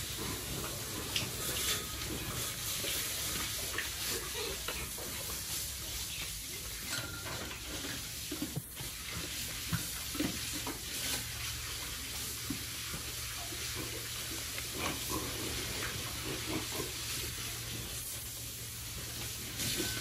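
Steady hiss of running water with scattered small clicks and knocks, and a few short grunts from piglets.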